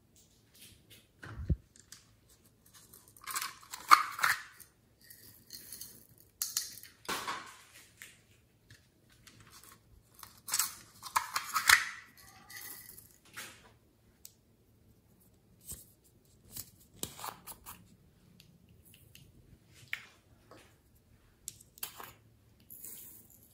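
Small plastic pots of glitter and sequins handled, opened and emptied into a glass dish: scattered rustles and light clicks. The loudest come about four seconds in and around eleven to twelve seconds in, with a soft low knock about one and a half seconds in.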